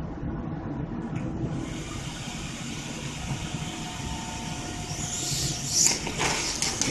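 Plasma arc from a double-BJT, twin-flyback high-voltage generator, hissing steadily from about a second and a half in. About five seconds in the hiss grows much louder and crackly as the arc plays onto the salmon burger in the steel pan.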